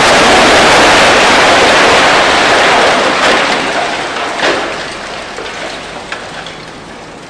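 Floors of a multi-storey concrete building collapsing in demolition: a loud, continuous rush of falling rubble that fades from about four seconds in, with a few separate knocks of debris landing near the end.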